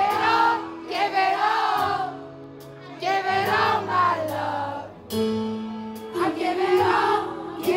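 Live indie rock band playing, with vocals sung in phrases over the band and regular cymbal hits from the drum kit.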